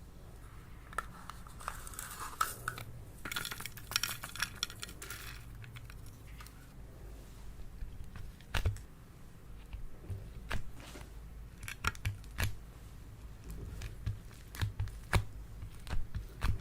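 Slime being handled: a spell of crackling and crinkling a couple of seconds in, then scattered sharp clicks and pops.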